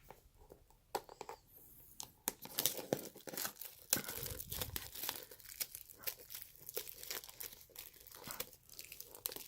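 Plastic wrapping on a box of trading cards crinkling and tearing as it is pulled open, in a dense run of irregular crackles that starts about two seconds in, with a dull bump about four seconds in.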